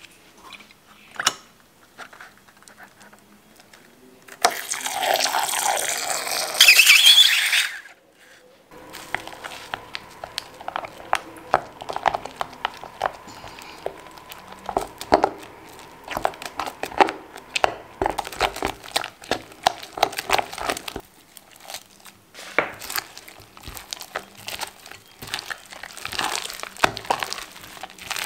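Sticky foamy slime mix being stirred with a spatula in a glass bowl: dense, irregular clicking, scraping and squelching, turning near the end into crackly squishing as the slime is kneaded by hand. A loud hiss of a few seconds comes about four seconds in.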